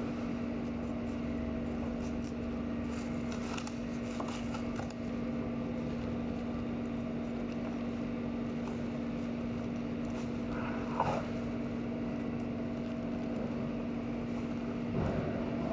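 Steady machinery hum of a meat cutting room, with a few light scrapes and clicks of a boning knife working along beef rib bones, one a little louder about eleven seconds in.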